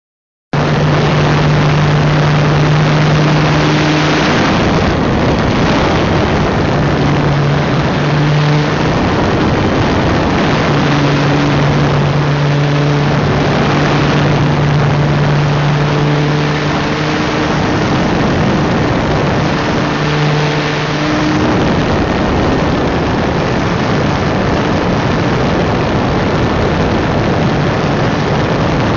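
Wind rushing loudly over a small camera mounted on the underside of a foam RC model plane in flight. The model's motor and propeller hum comes and goes with the throttle several times, then stops about two-thirds of the way through, leaving only the wind rush.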